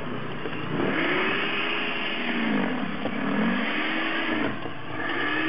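Toro electric snow blower's motor running with a whine whose pitch sags and recovers several times, as it bogs under snow and frees up again. Near the end it settles to a steady pitch.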